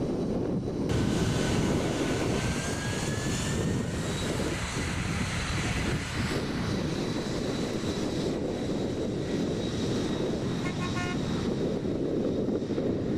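Jet airliner engines running, a steady rushing noise with a high whine that rises slowly over the first few seconds.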